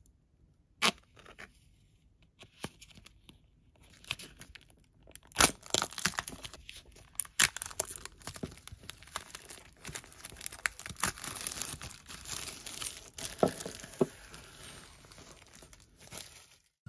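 Clear plastic wrap on a small stretched canvas being slit with a utility knife and peeled off by hand: a few sharp clicks at first, then dense crinkling and tearing from about four seconds in.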